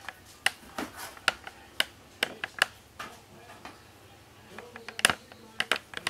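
Chef's knife cutting beef chuck roast into pieces, the blade knocking the cutting board in sharp, irregular taps, about two to three a second, with a short pause about four seconds in.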